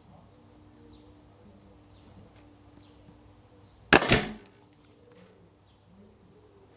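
A Remington Express .22 break-barrel air rifle fires once about four seconds in: a sharp crack followed immediately by a second, slightly weaker knock.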